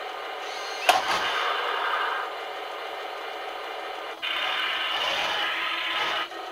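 Heng Long 1:16 RC Panther tank model's sound unit playing a steady engine idle through its small speaker. A sharp bang comes about a second in, followed by a louder stretch. From about four seconds to just past six, a louder mechanical run starts and stops abruptly as the tank turns.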